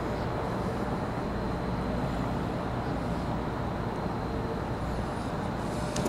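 Steady vehicle or traffic noise: an even, low rumble with no distinct events.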